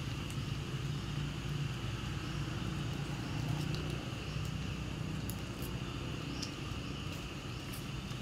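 Outdoor background: a steady insect drone with a louder low rumble under it, and scattered faint short clicks.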